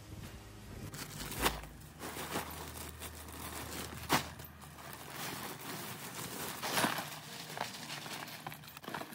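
Cardboard and brown paper rustling and crinkling as they are handled and laid on the ground for mulching, with three sharp knocks spread through it.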